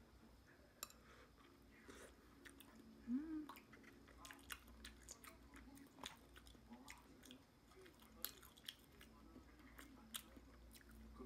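Quiet eating sounds: chewing with scattered soft clicks and taps as pizza and fries are handled. A brief rising vocal sound comes about three seconds in.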